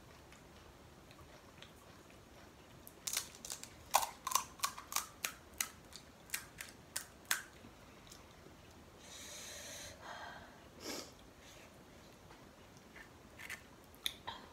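Crisp, hollow panipuri shells crunching and cracking: a quick run of about a dozen sharp crackles, then a short rushing hiss, then a few more crackles near the end.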